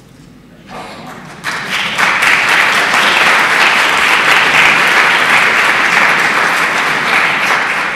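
Audience applauding: clapping starts faintly about a second in, swells to full strength within another second, holds steady, and tails off near the end.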